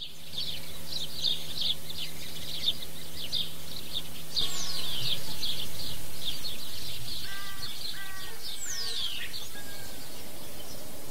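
Birds chirping busily, with two long whistles sliding downward, one about four and a half seconds in and one near nine seconds, and a run of short repeated calls between about seven and nine seconds. A low steady hum lies underneath for the first half.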